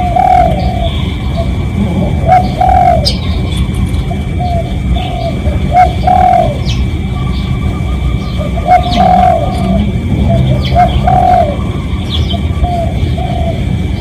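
Spotted dove cooing: several phrases of two or three soft, arched coos, a second or two apart. Short, high chirps of small birds come in between.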